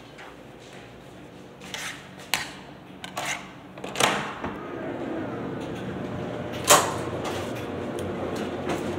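A door latch clicking and the door knocking several times as it is opened and swings shut. About halfway in a steady low machine hum sets in, with one sharp knock, the loudest sound, about two-thirds of the way through.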